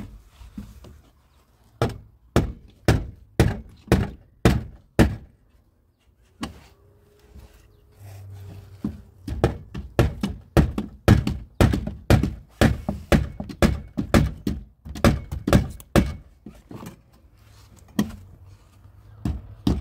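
Back of a hatchet used as a hammer, knocking on a plywood wall panel in a run of sharp wooden knocks about two to three a second, with a pause of a few seconds early on and a shorter lull near the end.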